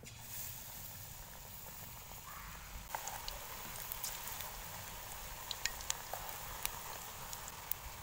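Besan (gram-flour) pakora batter deep-frying in hot oil in a kadhai, a steady sizzle as the batter goes in. The sizzle grows louder about three seconds in, with scattered sharp crackles and pops.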